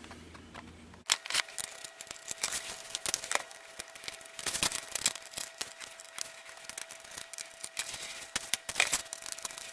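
Irregular small clicks and rattles of a micro screwdriver and tiny laptop case screws being handled, starting about a second in.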